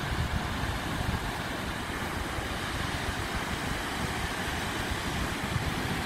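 Ocean surf breaking on a sandy beach: a steady, even rushing noise of waves.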